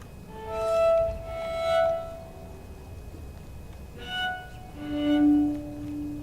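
Background music: a slow violin melody of long held notes, in two swelling phrases.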